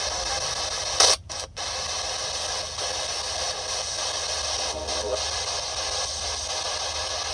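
Spirit box scanning through radio frequencies: a steady hiss of radio static, with one brief louder blip about a second in followed by two short cutouts.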